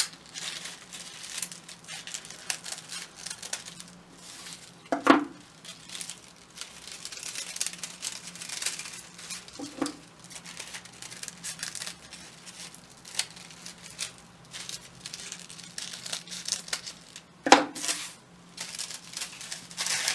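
Scissors snipping through folded crepe paper, with the paper crinkling as it is turned in the hand, cutting rounded petal tops. A few louder knocks stand out, about five seconds in, near ten seconds, and the loudest at about seventeen seconds.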